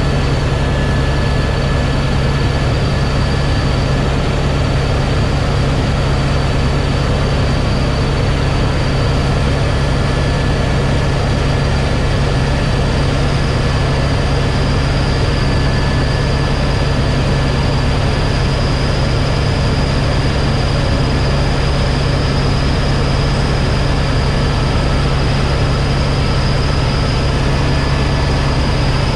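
Helicopter in flight heard from inside the cabin: a loud, steady drone of engine and rotors with a thin high whine above it that creeps slightly upward.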